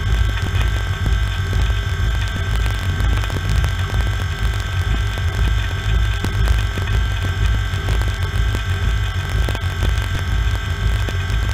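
Banger race car's engine idling while the car stands still, heard from inside the cabin, with a steady low pulsing and light rattles.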